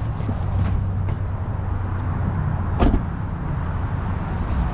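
Car running with a steady low engine and road hum, and one short knock about three seconds in.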